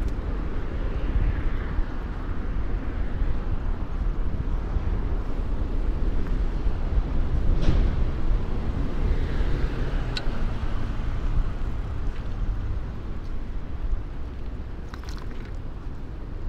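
Street noise heard from a moving bicycle: a steady low rumble with motor traffic, swelling for a moment about halfway through, and a few light clicks.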